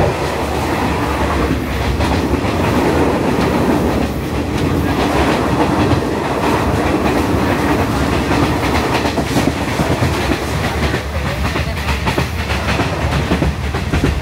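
Passenger train running, heard from inside the carriage: a steady rumble, with the wheels clattering on the track.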